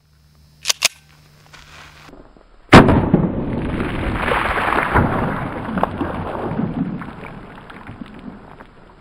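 Two sharp cracks about a second in, then a loud bang near three seconds in, followed by a long rumbling clatter that fades away over about four seconds.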